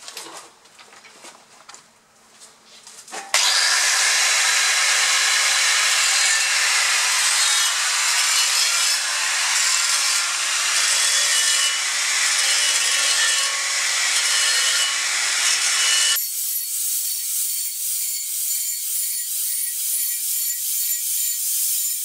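Angle grinder disc gouging a groove 1 to 2 mm deep along a weld seam in steel plate. It starts abruptly about three seconds in, after a few faint handling knocks. About sixteen seconds in the grinding turns thinner and higher, with a wavering whine, as the footage switches to sped-up playback.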